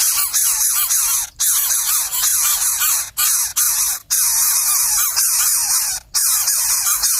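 Many small birds chirping at once, quick high wavering calls overlapping over a steady high hiss, as of nestlings begging. The sound cuts out abruptly for a moment about four times.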